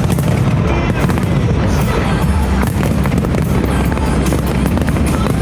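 Fireworks going off in rapid succession, dense bangs and crackles with no gaps, over loud music.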